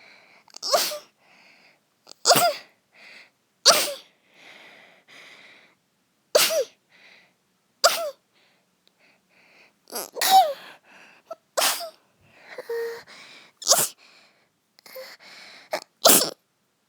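A girl's sneezing fit from a cold: about nine sharp, high-pitched sneezes in a row, one every couple of seconds, each led in by a short, soft catching in-breath.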